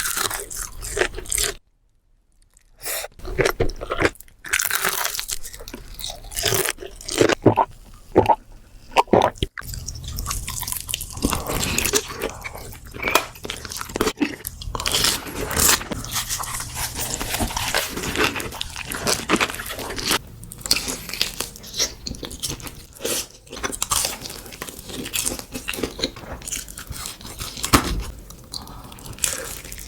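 Crispy fried chicken being bitten and chewed close to the microphone: a dense run of crunches from the breaded coating, broken by a brief silence about two seconds in.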